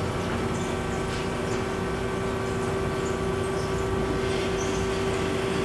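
Amada HFA-400W automatic horizontal band saw running, its blade going as the head feeds down through the clamped workpiece. A steady machine hum with a constant mid-pitched tone.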